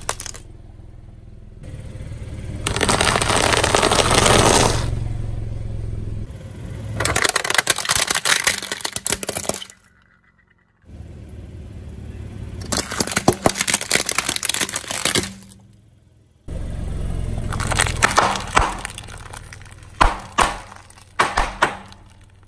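Car tyre rolling slowly over plastic toys on concrete, cracking and snapping them, with bursts of sharp cracks over the low rumble of the tyre. The sound cuts off and restarts a couple of times as one crush follows another.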